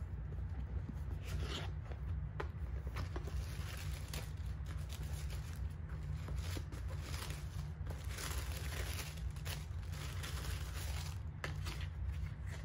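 Tissue paper rustling and crinkling as it is unfolded inside a cardboard gift box, with light knocks and scrapes from the box and a card being handled. A steady low hum runs underneath.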